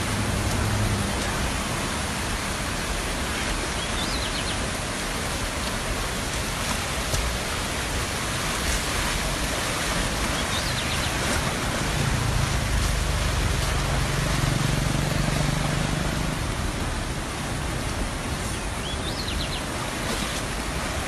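Muddy floodwater rushing past in spate: a steady, dense roar of a river in flash flood. A few faint short high chirps sound over it.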